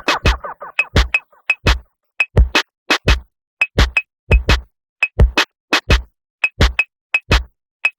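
Electronic lo-fi music: a choppy beat of short, sharp clicking hits, each with a deep kick underneath, separated by brief silences, with a short run of pitched synth tones near the start.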